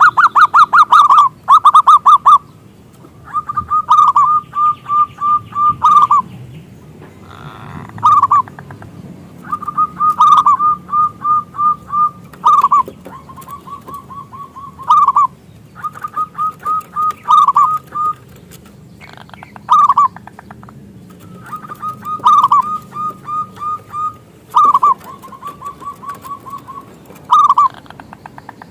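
Zebra dove (perkutut) cooing: a dozen or so loud phrases, each a quick run of short staccato notes at one pitch ending in a longer, drawn-out note, with short pauses between phrases.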